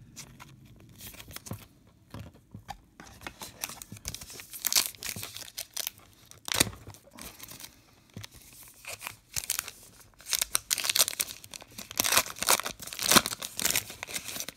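Plastic-and-foil wrapper of a Topps Star Wars trading card pack being torn open and crinkled, in a run of rustling bursts that pick up after the first few seconds, as the cards are worked out of the pack.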